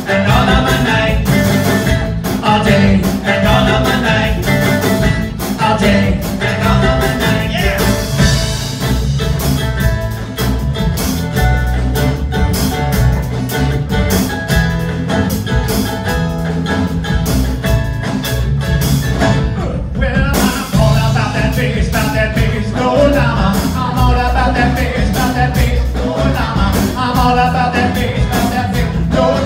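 A live band plays an up-tempo song on acoustic guitars, mandolin, bass and drum kit, with a steady beat, heard from the audience in a hall.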